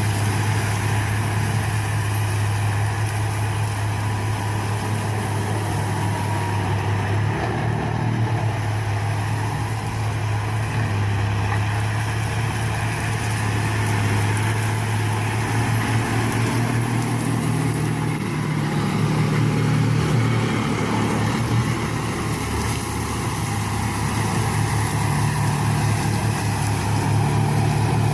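Engine of a land-and-water brush and weed clearing machine running steadily under load, its note shifting slightly a few times.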